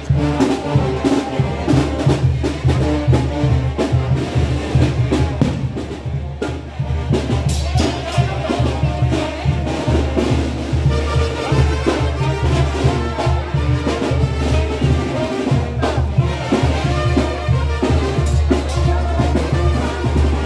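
A brass band playing, with drums and a steady bass line under the brass.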